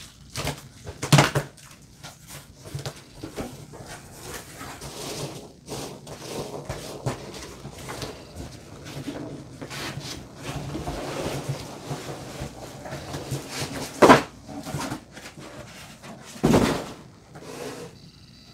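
Foam packing peanuts rustling and squeaking against each other and the cardboard as hands dig through a shipping box, with cardboard scraping. Several sharp knocks, the loudest about 14 and 16 seconds in.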